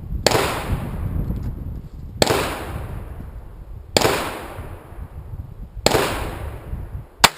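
Pistol shots from a Ruger 22/45 .22 LR pistol fitted with a compensator: sharp cracks about every two seconds, each ringing away over a second or so. The last, near the end, is shorter and sharper.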